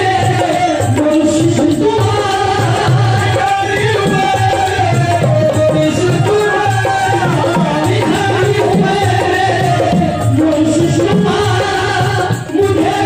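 Qawwali music: a harmonium and a hand drum playing a steady beat, with voices singing a wavering melody over them.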